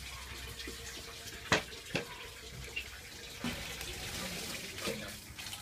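Two sharp knocks about half a second apart, with a few fainter ones later, over a steady hiss.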